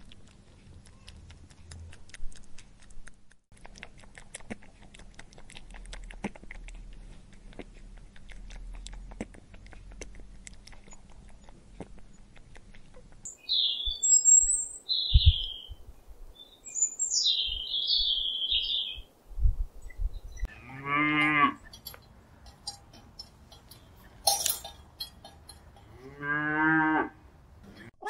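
Rabbits nibbling and crunching food make faint clicks at first. High bird chirps follow. Then come two long, deep animal calls about five seconds apart, each rising and then falling in pitch; these are the loudest sounds.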